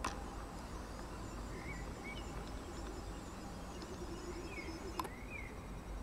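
Faint song of a single songbird singing in winter darkness: a few short rising-and-falling whistled phrases spaced out over a steady low hum. Two sharp clicks, one right at the start and one about five seconds in, are the loudest sounds.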